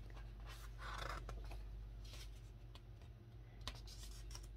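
Glossy magazine page being turned by hand: soft paper rustling and rubbing, loudest about a second in, with a few light taps near the end over a faint steady low hum.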